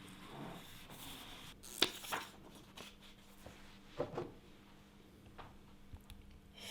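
Quiet room tone with a few light clicks and knocks, two pairs about two and four seconds in and smaller ticks after.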